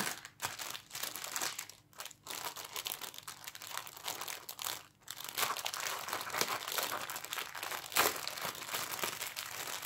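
Clear plastic zip-lock bag crinkling and crackling as hands turn it over and work at it, with a couple of brief pauses.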